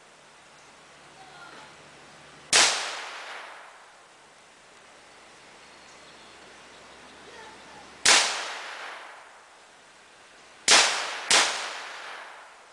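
Four gunshots: single shots a few seconds apart, then two in quick succession near the end. Each shot has a sharp crack followed by an echo that dies away over about a second.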